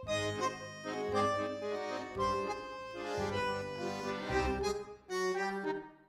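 Background music: a melody of held notes over a bass line, with no cooking sounds standing out.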